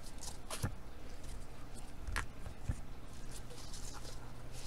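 Trading cards handled by nitrile-gloved hands and set down on stacks: scattered soft taps and crinkly rustles, with a steady low hum underneath.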